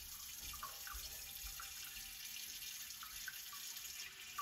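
Kitchen faucet running into a large stainless steel stockpot: a steady hiss of water filling the pot.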